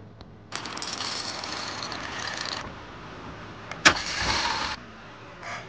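Twin-bell mechanical alarm clock ringing, a fast rattling ring that lasts about two seconds. A single sharp snap follows, then about another second of ringing.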